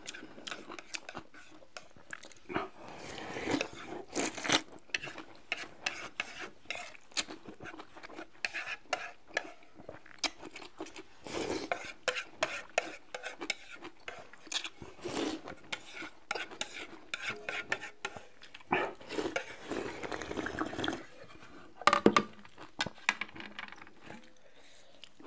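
Close-up eating sounds: chopsticks clicking and tapping against a bowl, with stretches of noodles being slurped.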